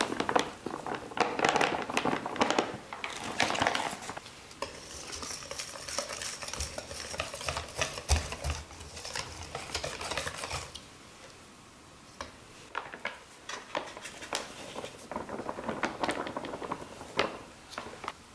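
Wire whisk beating tempura batter in a stainless steel mixing bowl: rapid clinking and scraping of the wires against the metal, which stops about ten seconds in. After that come a few scattered light clinks and taps.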